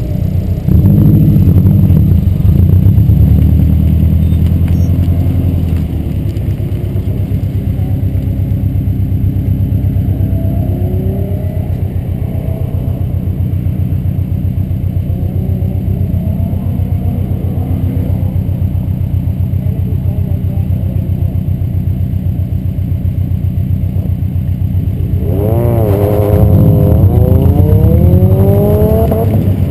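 Subaru WRX's turbocharged flat-four engine running: louder for the first few seconds as the car rolls up, then idling steadily. Near the end it is revved up and down and then held at rising revs, ready to launch.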